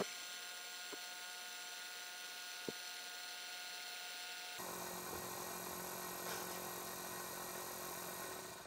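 Celestron telescope clock-drive motor running fast with a steady hum, as it does at power-up before its optical-encoder feedback brings it down to the correct rate. The tone changes abruptly about halfway through, and right at the end the sound falls away as the motor slows down by itself.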